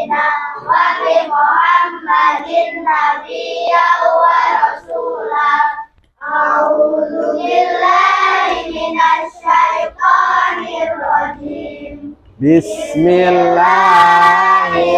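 A group of schoolchildren reciting an Islamic prayer together in a sing-song chant, with a brief pause about six seconds in and a fuller, louder stretch of chanting from about twelve seconds.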